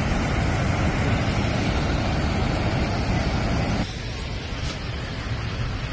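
Steady roar of Niagara Falls' crashing water, a dense rushing noise that drops abruptly in level about four seconds in.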